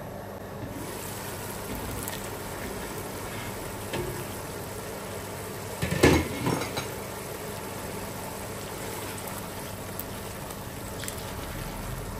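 Onion masala with tamarind water cooking in a pot, with a steady sizzling hiss. A few light knocks and a louder clatter of metal cookware come about six seconds in.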